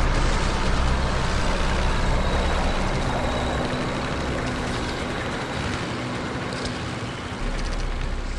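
Steady, heavy engine-like rumble with a dense noisy roar over it, gradually getting quieter.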